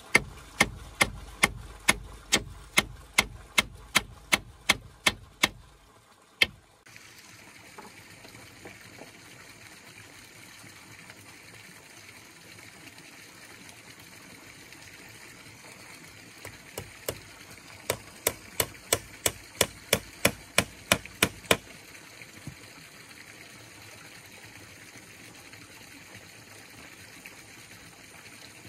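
Rapid, evenly spaced strikes of a tool on wood, about two and a half a second, in two runs of roughly five seconds each with a pause of about ten seconds between them. A faint, steady hiss lies underneath.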